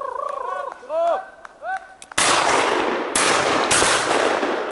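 Three shotgun shots in quick succession, each a sharp crack followed by a long rolling echo, at a pheasant flushed over the guns. They are preceded by a run of short, high whining calls.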